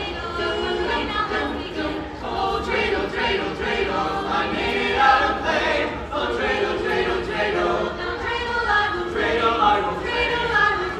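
Small mixed group of carolers singing a Christmas carol a cappella, several voices together in harmony.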